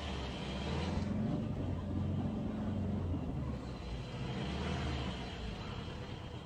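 Car engine running with a low steady hum, heard from inside the car's cabin.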